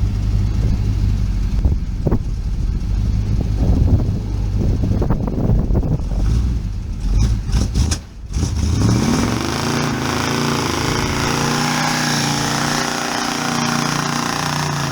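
A 1969 Dodge Charger's engine runs at a low rumble. About eight seconds in, it revs up and holds high while the rear tyres spin in a burnout, with a loud rushing tyre noise over the engine.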